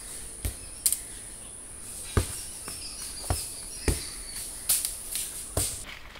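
Insects chirring in a steady, high, thin drone that cuts off near the end, with about seven soft thuds of steps over dry leaf litter.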